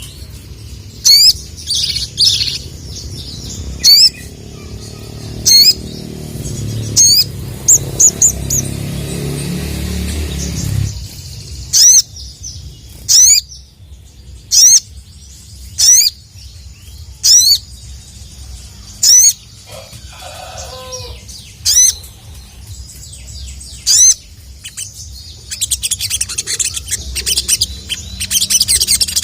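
A male sogon (sogok ontong) sunbird calling a sharp, high 'cuit' note over and over, about one every one and a half seconds: a lure call meant to draw out a rival male. Near the end it breaks into a fast run of twittering.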